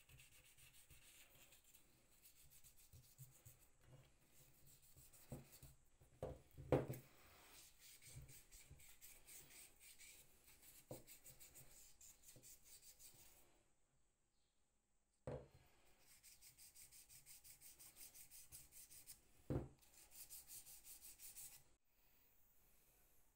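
Faint rubbing in quick, even strokes as hands work on the metal parts of a glazing point driver, broken by a few soft knocks, the loudest about seven seconds in.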